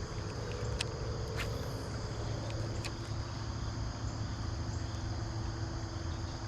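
Steady insect chirring, crickets or similar, over a low outdoor rumble, with a few short sharp clicks scattered through it.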